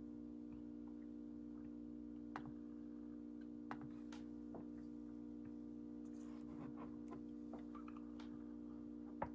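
Faint steady electrical hum with scattered light clicks and ticks, a sharper click near the end.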